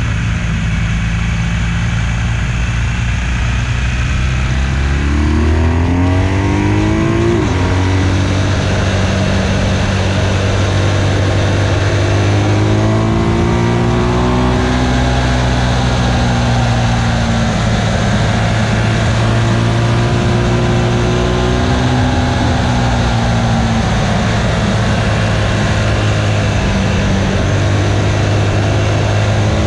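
BMW R1200GS flat-twin boxer engine under way, heard from on the bike. The revs pull low and steady, climb about five seconds in and drop sharply near seven and a half seconds at an upshift. After that the engine runs higher, with the revs swelling and easing several times.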